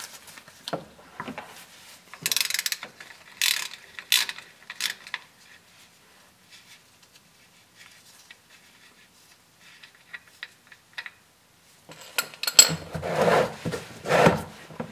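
3/8-inch ratchet clicking in several short bursts as it loosens the fill plug on a Dana 44 differential, followed by faint ticks as the plug is turned out. Near the end come a few louder knocks and rustles.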